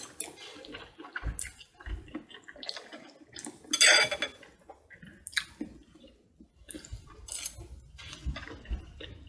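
Cutlery clinking and scraping on a plate during eating, in scattered short knocks with a louder clatter about four seconds in.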